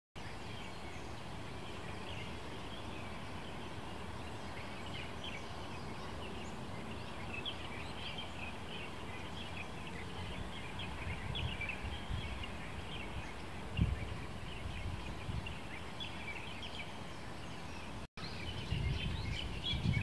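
Many small birds chirping at dawn, short calls overlapping throughout over a steady low background rumble. The sound briefly cuts out near the end, after which louder low rumbles come in.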